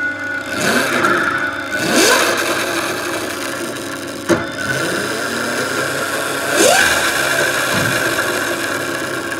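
Twin Castle 2028 800kv brushless motors of an electric go-kart whining, rising in pitch three times as the kart accelerates, over a steady electric whine. A sharp click comes about four seconds in.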